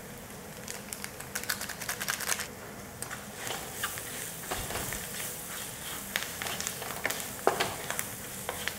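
Wooden spatula stirring and scraping onions, dried red chillies and spice powder around a nonstick kadai: quick, irregular clicks and scrapes that start about a second in.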